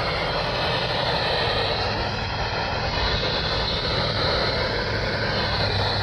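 Steady hiss of static from a NOAA weather radio receiver, with a low hum under it.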